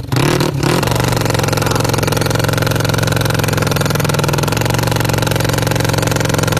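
Drag motorcycle engine held at a steady, unchanging speed for several seconds, settling in about a second in.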